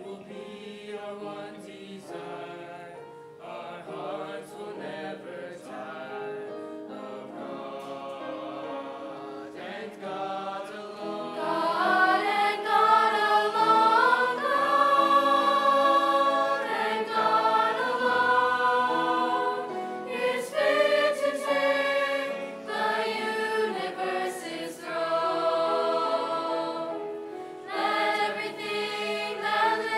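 A choir singing a sacred piece, soft for the first ten seconds or so, then swelling much louder about eleven seconds in.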